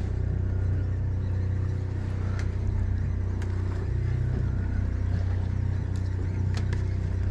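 Party boat's engine running steadily, a low even hum, with a few short sharp clicks on top.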